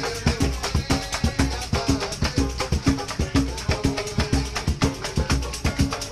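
Live samba percussion band playing: low bass drums on a steady beat under dense, quick rattling and clicking hand percussion.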